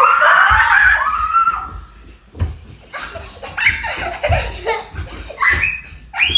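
Loud, high-pitched laughter coming in bursts, loudest at the start.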